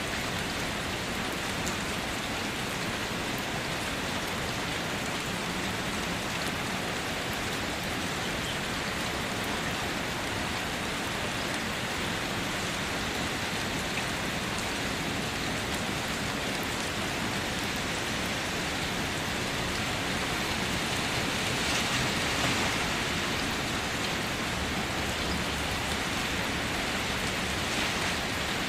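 Steady rain falling and pattering on a surface, an even hiss that swells slightly about three-quarters of the way through.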